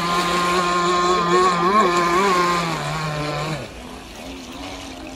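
Gas-powered RC speedboat's small two-stroke engine running at high revs as the boat planes across the water, its pitch wavering twice. A little past halfway the note drops sharply and the engine becomes much quieter.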